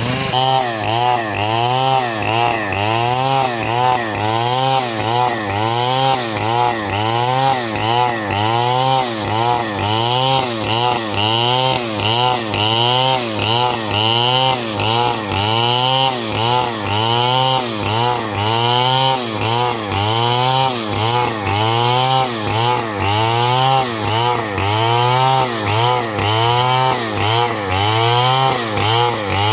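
Stihl chainsaw engine running, its pitch rising and falling in a steady, regular rhythm a little faster than once a second.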